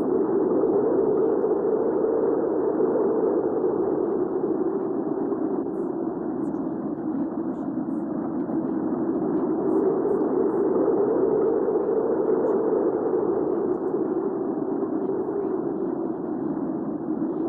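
Recorded hurricane-style wind ambience: a steady, dull, deep rush of wind that slowly swells and eases.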